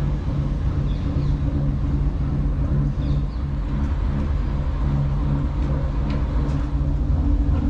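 A Dutch barge's engine running steadily under way, a low, even hum with a rumble beneath it.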